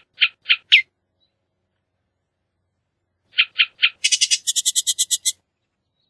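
Bullock's oriole calling. A run of four short notes, about four a second, opens the clip. About three seconds later come three more, which break straight into a rapid chatter of about seven notes a second.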